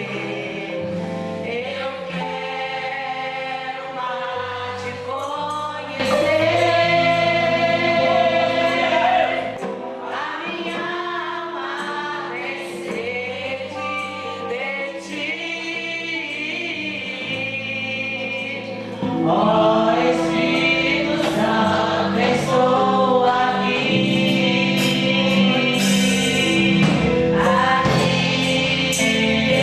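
Gospel music with a choir singing over a band; it swells louder and fuller about six seconds in and again about two-thirds of the way through.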